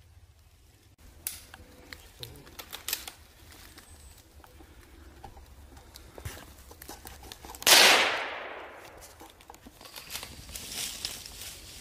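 A single gunshot about three-quarters of the way in, sudden and loud, its echo dying away over about a second.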